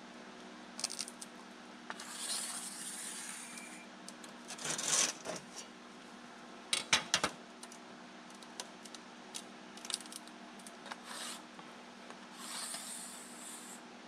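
A metal straightedge sliding and scraping on a 14-gauge steel sheet while lines are marked along it, with two long scratchy strokes and a few sharp clinks of the rule knocking the steel about halfway through.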